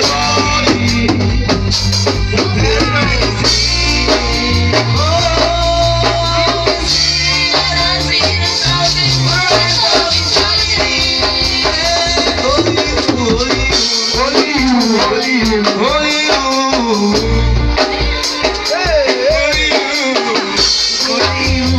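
Live gospel band playing with a lead singer: drum kit with shaker-like rattles, a bass line underneath, and a voice carrying the melody.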